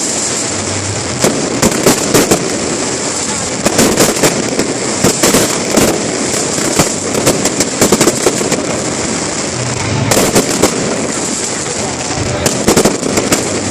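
Display fireworks bursting in quick clusters of sharp bangs and crackles that come in waves every few seconds, over a steady din of crowd noise.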